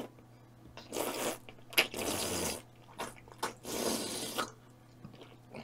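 Sucking and slurping fruit jelly straight out of a plastic cup: three longer wet slurps with short clicks in between.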